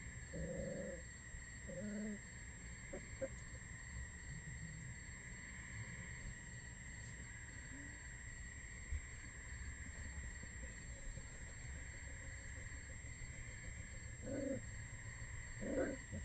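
Red wolf pups giving short, low calls, a few at the start and again near the end, over a steady high trilling of crickets.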